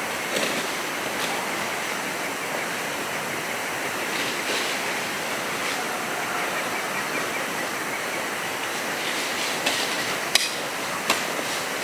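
Steady rushing of flowing water, with a few short sharp knocks near the end.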